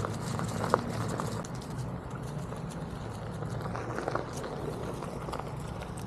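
Footsteps crunching through leaf litter and twigs on a forest floor, with scattered irregular snaps and one sharper snap a little under a second in, over a steady low rumble.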